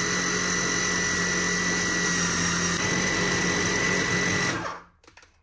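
Food processor motor running steadily while chopping cilantro, lemon juice and olive oil into pesto, with a steady whine. It is switched off near the end and spins down to a stop.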